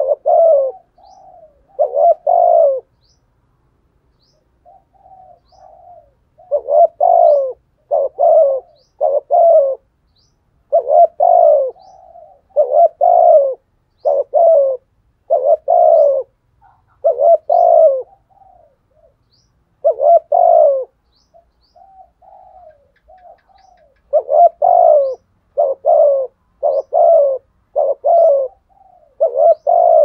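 Caged decoy spotted dove cooing in the deep voice that fanciers call 'thổ sấm': loud coos repeated in runs of two to five, with softer, lower coos between the runs. Faint short high chirps sound now and then in the background.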